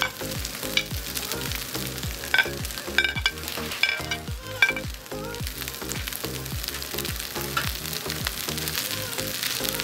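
A metal spatula clinking and scraping against a glass bowl, with several sharp clinks in the first half, as cooked chicken and scrambled egg are pushed into a pan of sizzling fried rice. Background music with a steady beat runs underneath.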